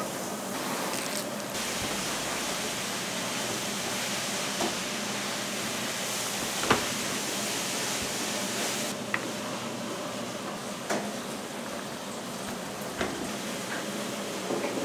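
Steady kitchen hiss with a few short sharp knocks, the loudest about seven seconds in; the hiss thins out about nine seconds in.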